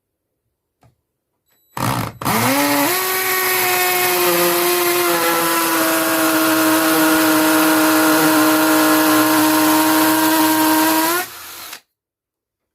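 Stanley Fatmax V20 cordless hammer drill boring into a masonry wall. A brief blip, then the drill spins up, runs steadily for about nine seconds with its pitch sagging slightly under load, and stops near the end.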